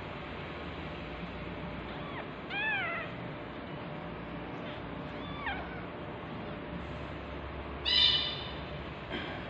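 A cat mewing: four short, high meows, each rising and falling in pitch, the loudest about eight seconds in.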